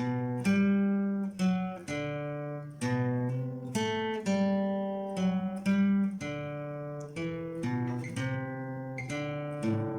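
Acoustic guitar playing the song's chords in E minor, struck about every half second to a second, each chord ringing and decaying before the next.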